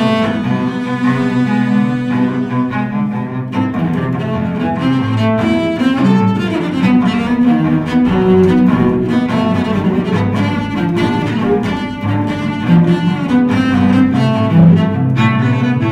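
Two cellos playing a bowed duet: continuous low and middle-register notes that move from pitch to pitch without a break.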